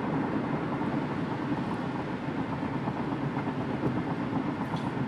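Steady road and engine noise inside a Toyota Prius cabin, cruising at about 60 mph with the petrol engine running.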